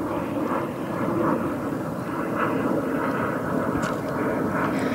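A steady engine drone with no clear rhythm.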